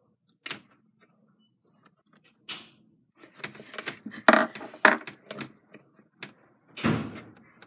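Clicks, taps and knocks of makeup items and brushes being picked up and set down on a vanity table, a cluster of them a few seconds in and one louder bump near the end.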